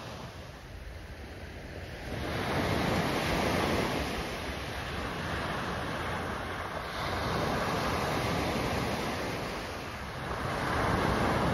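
Small waves breaking and washing up a sandy beach, the surf swelling about every four to five seconds, with wind on the microphone.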